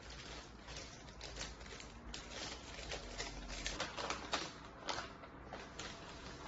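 A run of light, irregular clicks and taps, a few a second, thinning out near the end.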